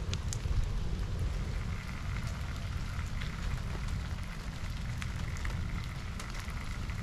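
Wood campfire crackling, with scattered sharp pops, over a low steady rumble.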